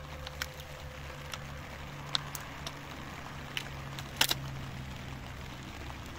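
Small hatchet chopping at a long, dry wooden pole: scattered, irregular sharp knocks, the loudest a quick pair about four seconds in. A low steady hum runs underneath and fades out near the end.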